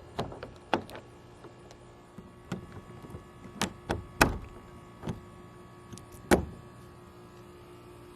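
Irregular knocks and clunks of plastic shed panels and parts being handled and fitted together, the loudest about four and six seconds in.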